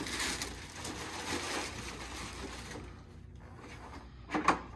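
Clear plastic packaging bag crinkling and rustling as it is handled over an RC truck's body, busiest in the first three seconds. A short, louder sound comes near the end.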